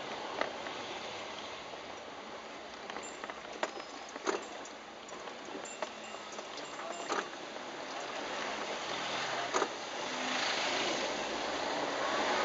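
Steady rushing road noise of a vehicle driving, with scattered small knocks and clicks; the noise grows louder in the last few seconds.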